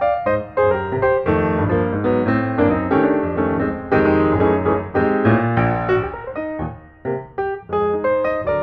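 Piano music, many quick notes over a low bass line.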